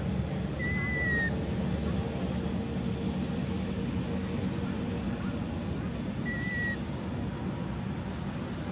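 Infant long-tailed macaque giving two short, high coo calls, each falling slightly in pitch, about five seconds apart, over a steady background hiss.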